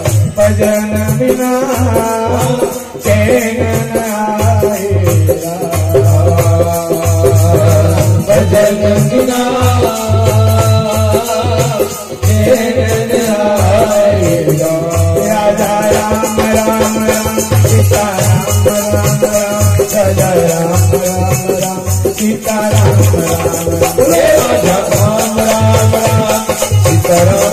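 Live devotional bhajan music: a harmonium-led melody over a steady rattling percussion rhythm.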